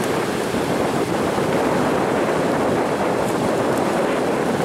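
Steady rushing of waves breaking on a sandy beach, mixed with wind buffeting the microphone.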